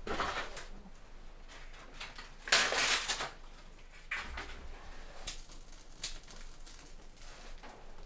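Birch bark being torn by hand, a loud ripping rustle about two and a half seconds in, followed by scattered small clicks and rustles as kindling is set in a small steel wood stove to light a test fire.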